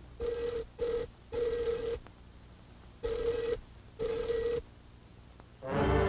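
Telephone bell ringing in five separate rings of uneven length, each a steady pitched ring, the third and fifth the longest. Music comes in near the end.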